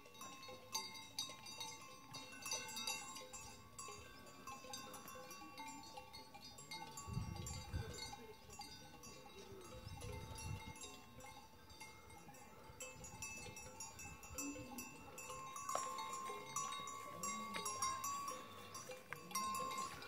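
Cowbells clanking irregularly on grazing cattle, a jumble of metallic rings and ticks, with a couple of low rumbles midway.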